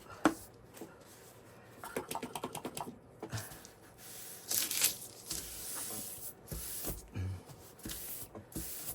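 Paper towel handled and torn, with a quick run of ripping ticks, then paper rustling and rubbing as a tool is wiped down.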